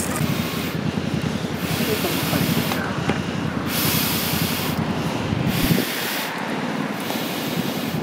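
Air blown through a metal fire-blowing pipe into a small wood fire: about four breathy rushes, each about a second long with short pauses between, over a low rumble that drops away about two-thirds of the way through.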